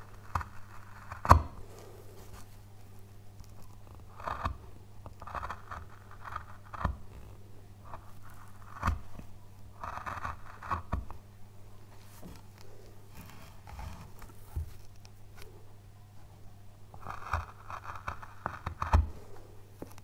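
Hand carving tool cutting and scraping into pale wood in short, irregular bursts, with several sharp clicks along the way. A faint steady low hum runs underneath.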